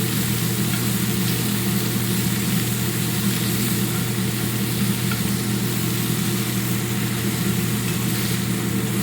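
Spiced chicken strips frying and sizzling in a hot pan as they blacken, over a steady low mechanical hum.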